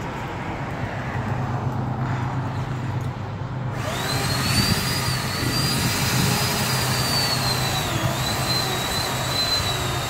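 Chainsaw high up a spruce trunk, revving up about four seconds in and then running at full throttle with a high whine, its pitch dipping briefly as it bogs into the wood. A steady low hum runs underneath.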